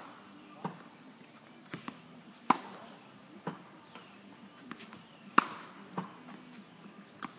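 Tennis racket striking the ball on groundstrokes: sharp pops about every three seconds, the two loudest about two and a half and five and a half seconds in, with fainter knocks of the ball bouncing on the hard court between them.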